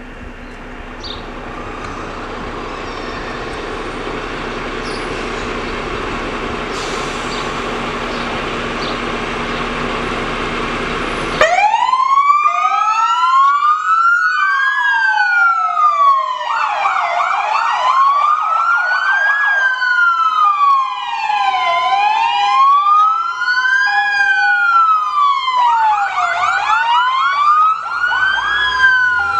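For about eleven seconds a steady mechanical noise with a low hum slowly grows louder as the fire station's garage doors roll up and the fire engines' engines run. Then fire engine sirens switch on suddenly. They cycle between a slow rising-and-falling wail, a fast yelp and a two-tone hi-lo, the alarm-response warning of fire trucks leaving the station.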